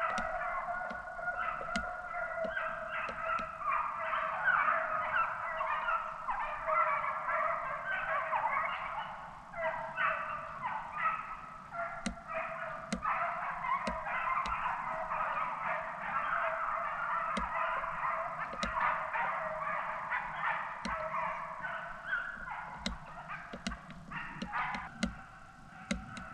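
A pack of deer hounds baying on a chase, many dogs' voices overlapping in a continuous chorus.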